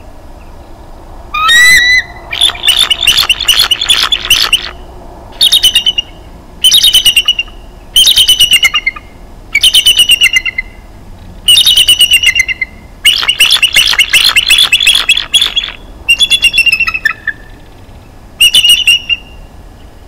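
Bald eagle calling: about ten bursts of high, rapid chattering calls starting about a second and a half in, the pitch dropping at the end of many bursts.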